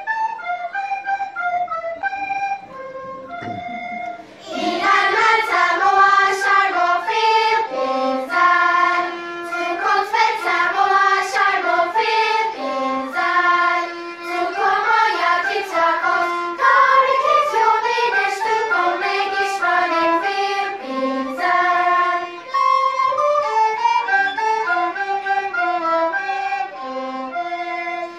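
Recorders and a violin play a short melody line. About four seconds in, a children's choir comes in singing along with them.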